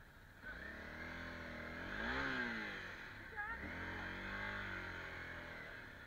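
Honda CRF250L's single-cylinder four-stroke engine under way, revving up to a peak about two seconds in, easing off, then picking up again about halfway and holding steady.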